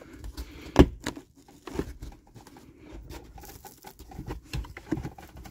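Interior trim of a pickup's cab being pulled down by hand: rustling handling noise with scattered knocks, the loudest a sharp knock about a second in.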